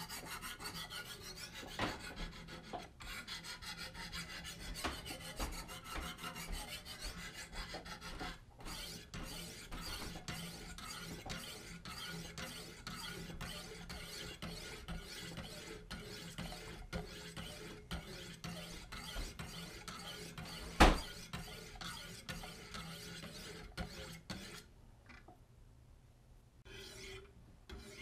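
Wicked Edge guided sharpener's stones being stroked along a carbon steel Sabatier blade: a rasping scrape repeated at about two strokes a second. A single sharp knock about three quarters of the way through, and the strokes become quieter and patchier near the end.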